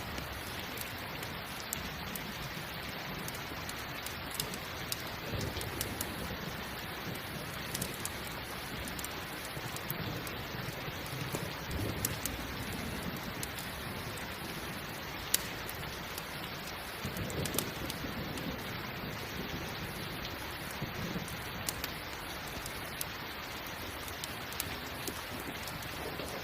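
Steady rain hissing, with scattered sharp pops and crackles from a campfire and a few soft low rumbles now and then.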